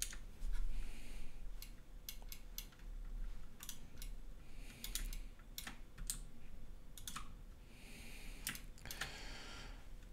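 Computer keyboard keys and mouse buttons clicking in short irregular runs, as numbers are typed into value fields.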